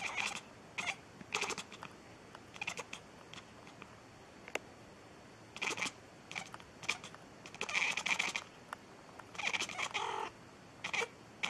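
A white cat making a series of short, broken calls with its mouth opening and closing, each only a fraction of a second, a few up to about a second, with clicks in between.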